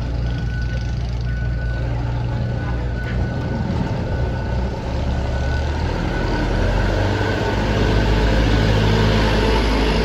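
Light truck's engine running at low speed as it drives off a ferry ramp, getting louder about halfway through as it passes close by.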